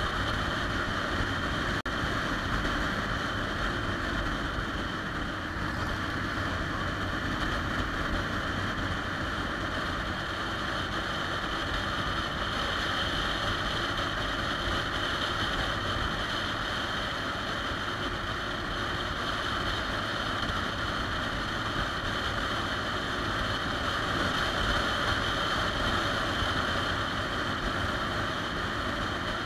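Steady wind rush and road noise from a 2013 Triumph Rocket 3 Touring riding at an even cruising speed, with its three-cylinder engine running underneath. The wind is on a handlebar-mounted microphone.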